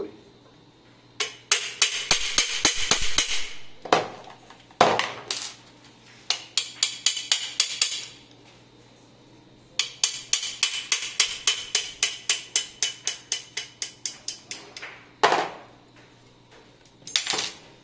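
Quick taps of a small hammer on a Rossi Gallery .22 pump-action rifle, in three runs of about five to six taps a second, with a few single heavier knocks between them. The tapping is to free a part held fast by built-up dirt.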